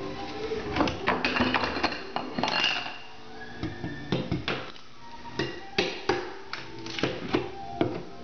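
Steel pry bar scraping and knocking against ceramic shower tile and wallboard as the base trim is levered off: an irregular run of sharp clinks, taps and scrapes.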